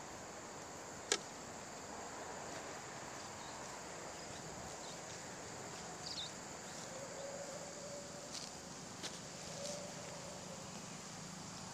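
Steady high-pitched chirring of insects in the field, with a single sharp click about a second in and a few faint short chirps and soft tones later.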